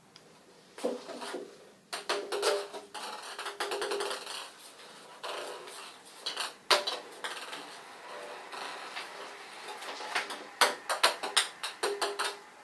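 Ping-pong ball batted around a bathtub by cat paws, clattering and rolling against the tub in irregular runs of rapid clicks. There is a busy stretch a couple of seconds in, one sharp knock in the middle, and another burst of quick hits near the end.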